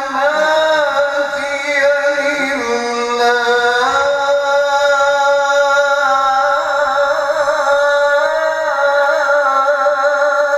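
A male qari chanting Qur'an recitation (tilawah) in a melodic style: one long phrase of held notes that step up and down in pitch, with wavering ornaments on the longest note in the second half.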